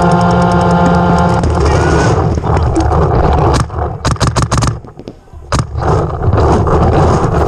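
Paintball marker firing in rapid strings of sharp pops, about eight shots a second at first, then a quick burst and a single shot later, over a heavy low rumble. A steady sustained tone sounds over the first second and a half.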